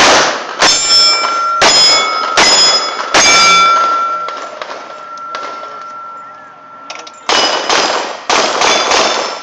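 A .45 Colt 1991A1 pistol firing a quick string of five shots at steel targets, each hit followed by a metallic ring that hangs on between shots. After a pause of about four seconds, two more shots and rings near the end.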